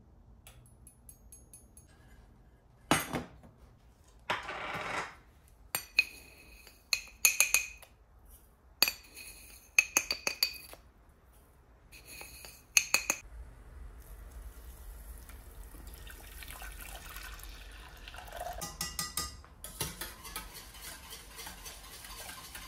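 Kitchen utensils and dishes clinking: a series of sharp, ringing clinks over the first half, like a spoon knocking against a mug and pot. After that, a steady low hiss with a burst of rapid clicking near the end.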